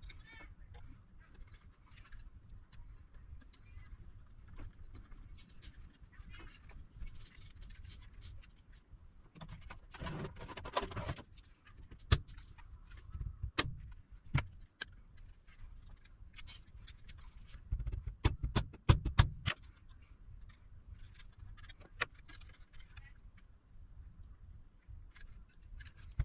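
Workbench handling noise from taking apart an electronic device: scattered small clicks and clatter of tools and metal parts. There is a rattling stretch about ten seconds in and a quick run of sharp clicks about two-thirds of the way through.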